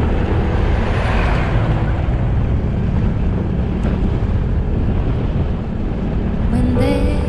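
Motorcycle on the move: steady engine and road noise with wind rushing over the microphone.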